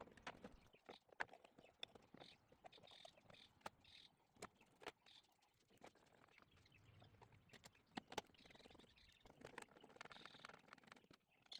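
Near silence with faint, scattered clicks and taps.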